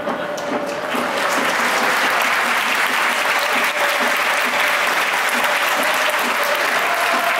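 Large stadium crowd applauding, swelling about a second in and then holding steady.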